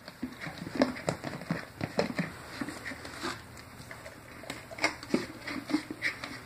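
Great Dane licking and smacking peanut butter from its mouth: irregular sticky wet smacks and tongue clicks, a few a second, with louder ones about a second in, at two seconds and near five seconds.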